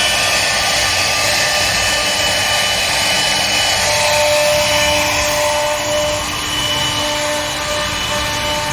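1325 CNC wood router with servo drives running a cut: a steady cutting noise with several held whining tones that start, stop and change pitch every few seconds as the axes move.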